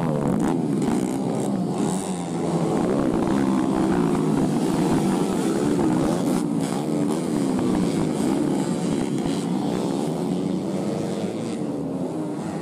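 Several dirt bike engines revving at once, their pitches rising and falling unevenly as the bikes labour through mud.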